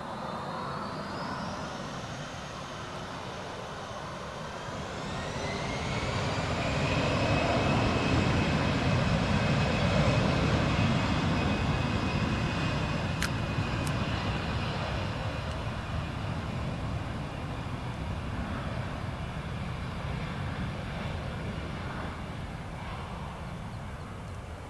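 Airbus A320 jet engines spooling up to take-off thrust with a rising whine, then a loud jet roar as the airliner accelerates down the runway, easing off slowly as it draws away.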